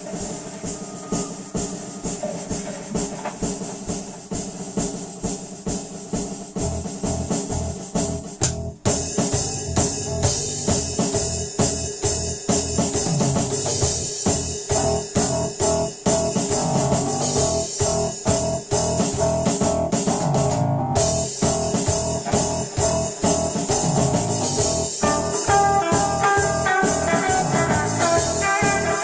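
A band playing a song with a steady drum beat. It gets louder and fuller about nine seconds in, and higher pitched notes come in over the beat near the end.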